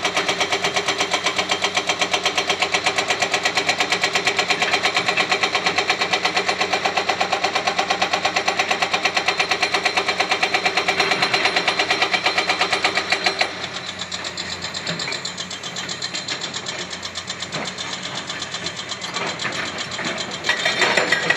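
Hydraulic breaker hammer on a 30-ton excavator pounding in rapid, even strokes. About thirteen seconds in the hammering stops and a quieter engine with scattered knocks remains.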